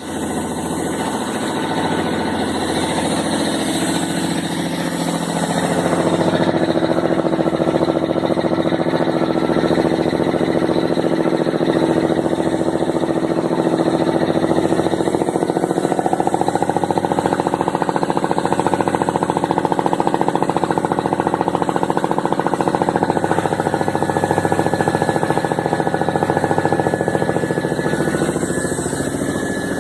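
Air compressor running with a fast, steady mechanical chatter, getting louder about six seconds in and easing slightly near the end. The compressor is passing oil, a fault the uploader says calls for an urgent rebuild.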